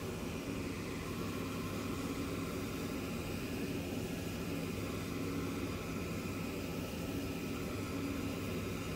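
Shoe finishing machine running steadily, a motor hum with a whirring wheel, as a boot's rubber sole edge is held against the spinning wheel.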